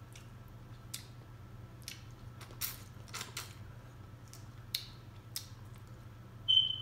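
Close-miked eating: scattered wet mouth smacks and clicks of chewing, over a steady low hum. A short high-pitched squeak near the end.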